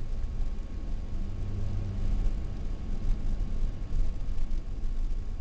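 Road noise heard from inside a moving car's cabin: a steady low rumble of engine and tyres.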